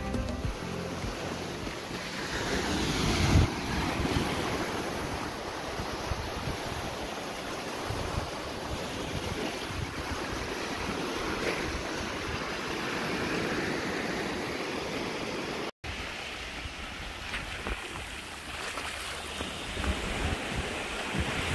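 Ocean surf breaking and washing in over shoreline rocks, with wind rumbling on the microphone. The sound cuts out for an instant about two-thirds of the way through.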